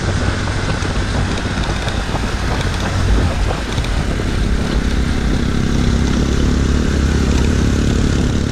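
Motorcycle engine running as the bike rides over a dirt trail, with wind and road noise on the camera microphone; the engine note settles into a steadier pitch about halfway through.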